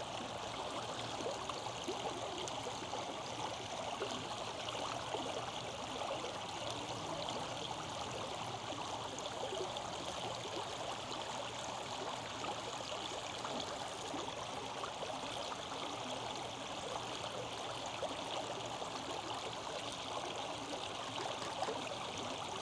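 Shallow creek flowing over rocks: a steady, even rush of running water.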